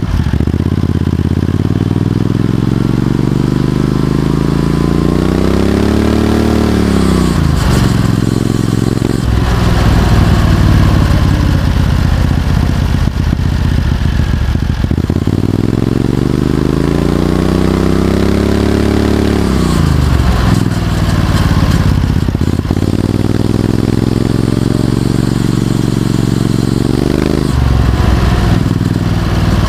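Go-kart's Predator 670cc V-twin engine running under load, its exhaust note climbing steadily in pitch and then dropping off three times as the throttle is opened and released.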